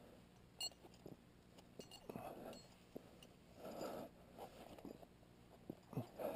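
Faint breathing of a climber on the rope, a soft breath every one and a half to two seconds, with small clicks and scrapes from the rope and gear.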